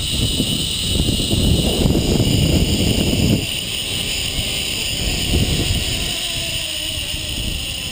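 Zip line trolley pulleys running along the steel cable with a steady high whine, over heavy wind buffeting the microphone; the wind eases a little after three seconds in.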